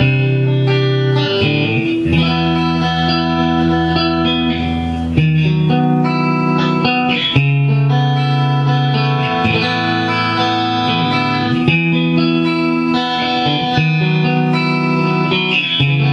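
Fender Mexican-made Stratocaster electric guitar played clean through an amplifier, held chords ringing and changing every one to two seconds.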